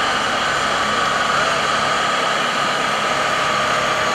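Heavy military truck's diesel engine running steadily as the tractor-trailer moves slowly.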